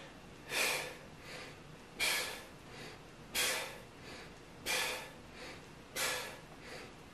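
A man breathing hard in rhythm with resistance-band W-raise reps: a sharp, loud breath about every second and a third, five times, each followed by a softer one.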